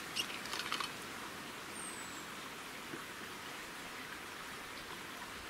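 A few light clicks as the screw cap of a metal water bottle is twisted open in the first second, then a steady faint hiss of background noise.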